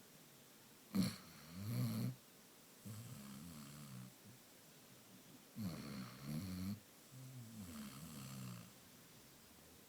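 Basset hound snoring: about four slow snoring breaths, each around a second long with quiet gaps between, the first opening with a sharp snort about a second in.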